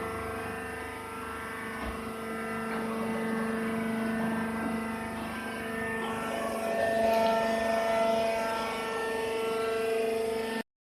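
Wood chips compress baling machine running: a steady mechanical drone with several held tones, growing somewhat louder about seven seconds in.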